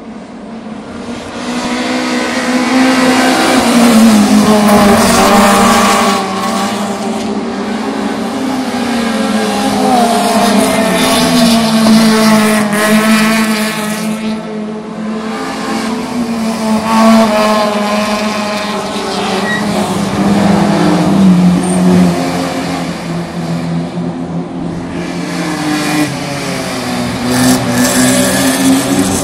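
Saloon race cars passing one after another at speed, their engines revving up and dropping back through the gears with loud exhaust notes.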